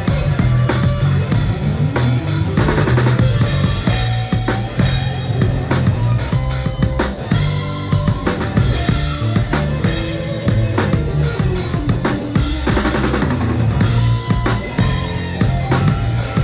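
Live rock band playing, with the drum kit loudest and close up: a steady beat of kick and snare with cymbals, over sustained bass notes and electric guitar.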